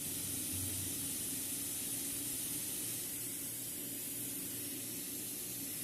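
A steady high hiss with a faint low hum under it.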